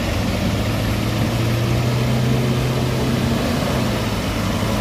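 Diesel engine of a loaded Isuzu Elf NMR truck running under load at steady revs as it climbs a muddy road and passes close by.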